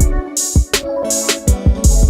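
Hip-hop style background music with a steady drum beat. The bass drops out briefly just after the start, then comes back.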